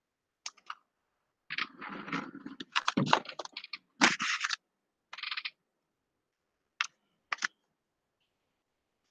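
Computer keyboard typing in short irregular bursts, then a couple of separate clicks near the end.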